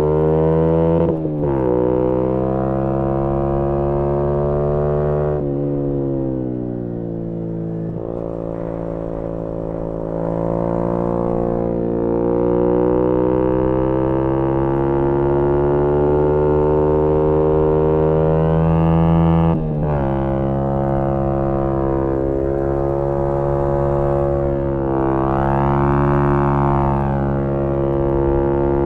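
Yamaha MT-125's single-cylinder engine through a GPR aftermarket exhaust, heard from onboard while riding: its pitch climbs and falls with the throttle. There are short breaks in the note from gear changes about a second in, about five seconds in and just before twenty seconds in. After the second break the pitch sinks for a few seconds as the bike slows, then rises again.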